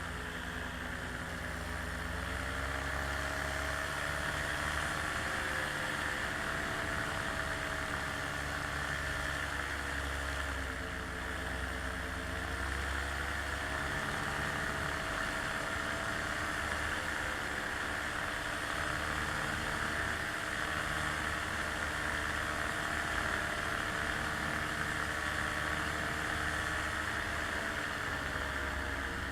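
Small aircraft's motors running steadily in flight, their pitch drifting up and down a little and dipping about eleven seconds in and again near the end.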